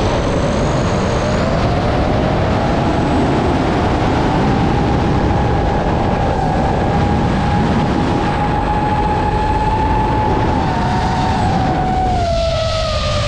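DJI FPV drone's motors and propellers whining in flight, the pitch climbing gently over the first few seconds, holding, then dropping about twelve seconds in as the throttle eases. A steady low rumble of wind on the microphone runs underneath.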